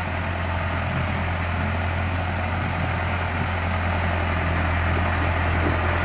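1960s tractor-backhoe's engine running steadily as the machine levels spread rock, getting slightly louder as it comes nearer.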